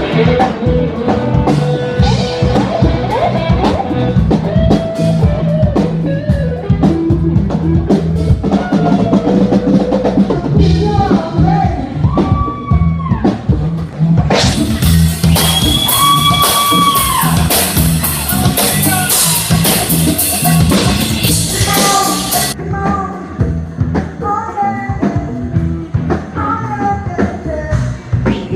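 Live blues band playing with a female lead vocal over drum kit and bass guitar, the singer holding long notes; the cymbals wash loudly for several seconds from about halfway through.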